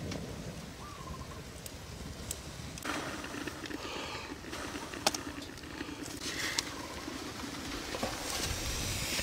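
Water boiling in a clay pot over a wood fire, with a steady bubbling hiss and scattered sharp crackles.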